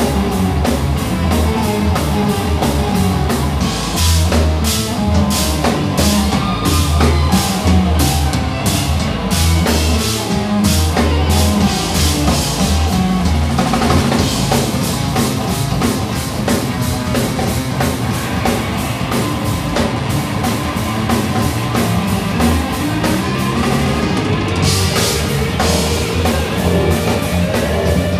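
A live band playing rock-style instrumental music: drum kit with busy cymbal strokes, electric bass, electric guitar and saxophone.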